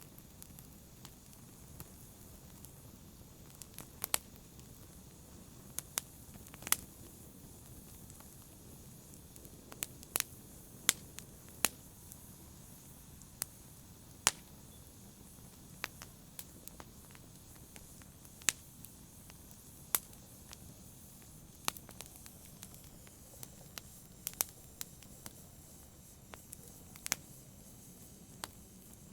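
Wood fire crackling: irregular sharp pops and snaps, a few every couple of seconds, over a steady low hiss of burning.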